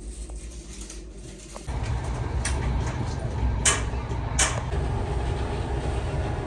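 VR passenger train running, heard from inside the carriage as a steady low rumble that jumps suddenly louder a little under two seconds in, with a few sharp clicks over it.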